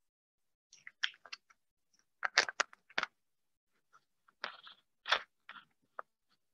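A string of short, irregular clicks and crackles, loudest about two and a half seconds in and again about five seconds in.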